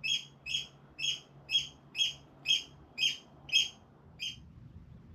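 A bird calling over and over: about nine short, sharp calls at roughly two a second, stopping about four seconds in.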